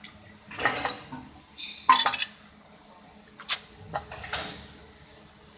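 A few metallic clanks and clatters of steel pieces knocking together, the loudest about two seconds in with a short ringing, then lighter clicks.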